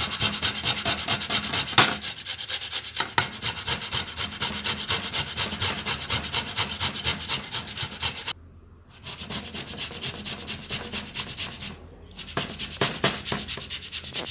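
Toothbrush bristles scrubbing rapidly back and forth against the inside of a bowl with a little wet paste, about five strokes a second. The scrubbing stops briefly twice, about eight and twelve seconds in.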